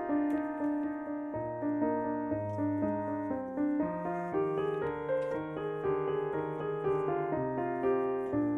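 Background piano music: a steady flow of melody notes over held bass notes.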